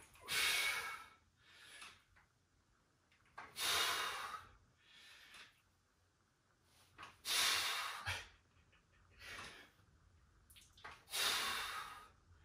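A man breathing hard with the effort of each rep of a dumbbell chest exercise. There are four loud, rushing breaths out, about every three and a half to four seconds, with a fainter breath between each.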